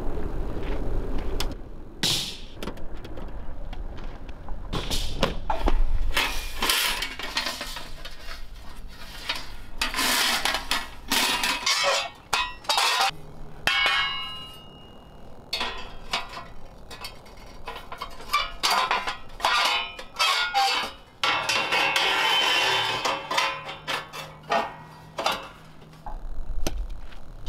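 Steel camp gear being handled and put together: a run of clanks, knocks and clinks as the plates of a flat-pack steel fire stand are slotted together, with stretches of scraping and a brief metallic ring about halfway through.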